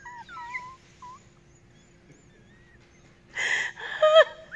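Dog whining and moaning as it is scratched: faint short rising and falling whines in the first second, then a breathy huff and a louder, wavering moan near the end.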